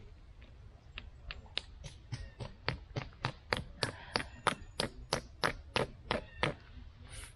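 A tent peg being hammered into the ground: about twenty quick, sharp strikes at roughly four a second, starting about a second in, growing louder, and stopping near the end.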